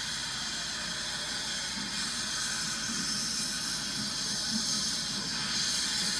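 Steam locomotive hissing steam, a steady hiss over a low rumble, swelling slightly near the end.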